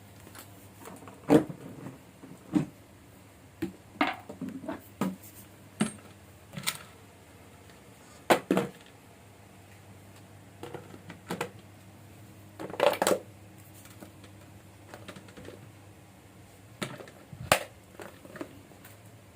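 Irregular metallic knocks and clatter of metal parts being handled, about a dozen separate events, the loudest about a second in, around eight seconds and around thirteen seconds, over a faint steady low hum.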